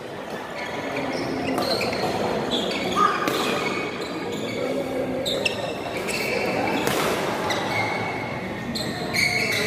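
Badminton rally in a sports hall: rackets striking the shuttlecock in sharp knocks at irregular intervals, and court shoes squeaking on the floor, over the echoing murmur of the hall.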